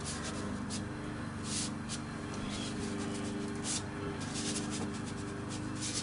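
Watercolour brush scrubbing against paper in short, irregular strokes, each a brief dry hiss, over a steady low hum.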